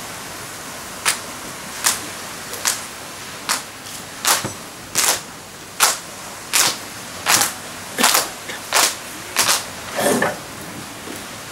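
A slow, steady beat of about thirteen sharp percussive strikes, one every three-quarters of a second, over a steady hiss.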